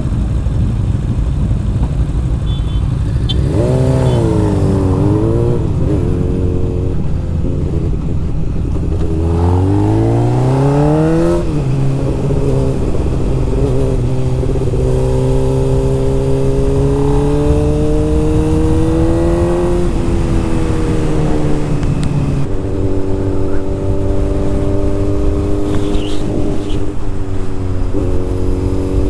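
Honda CB600F Hornet's inline-four engine pulling away and accelerating, its pitch climbing and then dropping at each gear change, settling into a steady cruise about two-thirds of the way through. Wind noise runs underneath.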